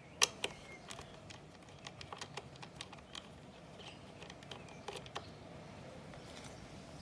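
Scattered small clicks and taps of computer parts and tools being handled during a laptop-style disassembly, with two sharp clicks just after the start and a few more about five seconds in.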